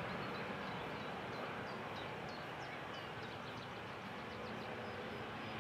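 A Boeing 737-800's CFM56-7 jet engines running at idle as it taxis, a steady hiss and rumble that eases off slightly. A small bird chirps repeatedly in short high notes over it.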